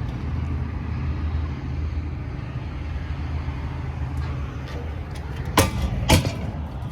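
A 6.4 Power Stroke V8 diesel idling steadily with a low hum. Two sharp knocks come about half a second apart near the end.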